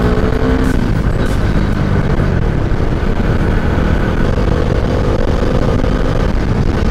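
Bajaj Dominar motorcycle being ridden at speed and gathering pace, its engine note faint under heavy wind rush on the camera mic.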